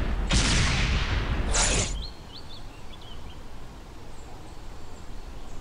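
Title-animation sound effects: a loud rush of noise starting suddenly about a third of a second in and fading over about a second, then a shorter, sharper one about a second and a half in. Afterwards a few small birds chirp over quiet woodland ambience.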